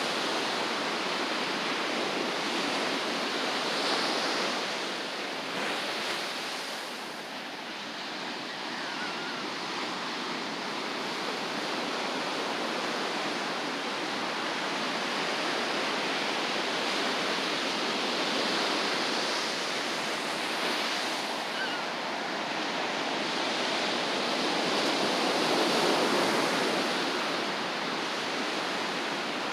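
Ocean surf breaking and washing onto a beach, a steady rush that swells and eases as each wave comes in.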